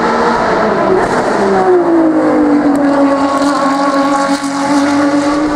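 Ferrari XX Programme V12 track car passing at speed. Its engine note drops in pitch about a second and a half in, then holds a steady tone.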